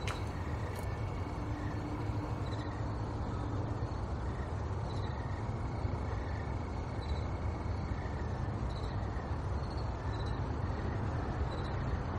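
Steady low rumble of distant traffic, with faint short high chirps repeating about once a second from about three seconds in.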